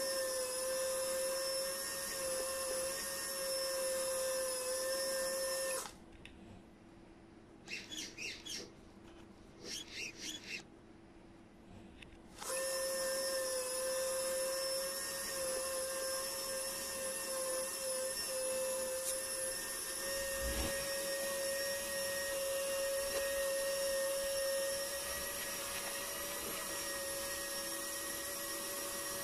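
RC crawler servo winch motor and gears whining steadily while reeling its line under the load of a hanging 3 kg scale crawler. The whine stops about six seconds in and starts again after roughly seven seconds.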